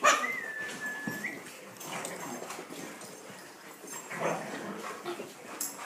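A dog gives one high, drawn-out whine lasting about a second at the start. Only quieter, scattered sounds follow.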